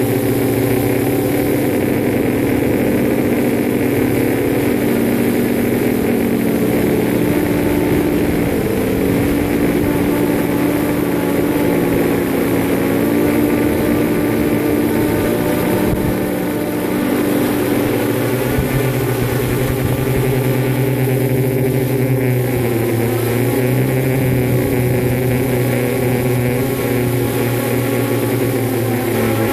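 Multirotor drone's electric motors and propellers buzzing steadily, heard close up from the phone riding on it. Its several rotor tones dip and rise in pitch together as the throttle changes, most clearly about nine and twenty-two seconds in.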